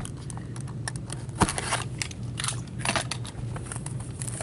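A shrink-wrapped hockey card box being cut open and handled: short crackles and scrapes of plastic wrap and cardboard, with a sharp click about a second and a half in.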